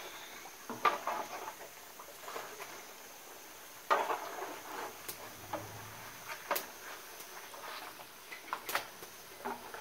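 Plastic spatula knocking and scraping against a large metal frying pan as tortillas are turned in hot oil, in irregular clicks and knocks, the loudest about four seconds in. Oil sizzles faintly underneath.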